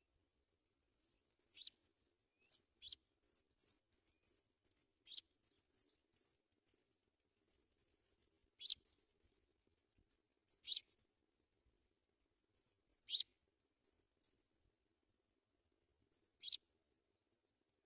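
African pipits cheeping: rapid, irregular bursts of very high, thin chirps, broken by four sharper calls that stand out above the rest.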